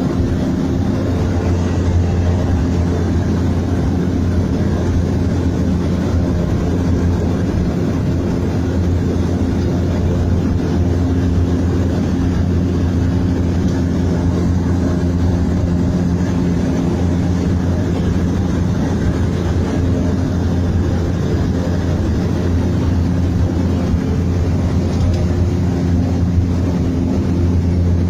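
Seaplane engine and propeller running at take-off, a loud steady drone that holds one pitch throughout.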